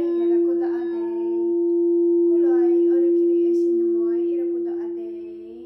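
Crystal singing bowl ringing a single steady tone, with a voice vocalising wordless light language over it in short phrases.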